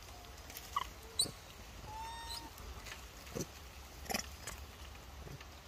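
Infant macaque giving a few short, faint coos, the clearest a brief arching call about two seconds in, among scattered soft clicks.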